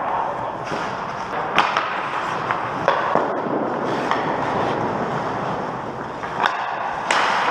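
Ice hockey skates scraping and gliding across rink ice, with a few sharp clacks of hockey sticks and puck.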